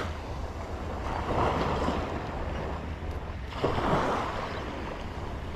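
Shallow water sloshing around a wading angler's legs, two slow swells about two and a half seconds apart, over a steady low rumble of wind on the microphone.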